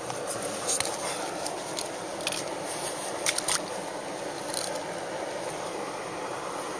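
Steady rush of a mountain stream's flowing water, with a few short clicks and scrapes over it in the first five seconds.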